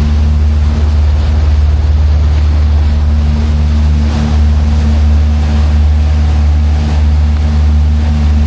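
A tour boat's engine running with a steady low drone, with water rushing past the hull.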